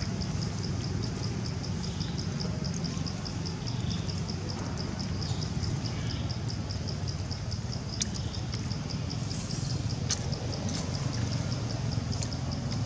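An insect chirping steadily in high-pitched pulses, about four or five a second, over a low background rumble, with a couple of brief sharp clicks about two-thirds of the way through.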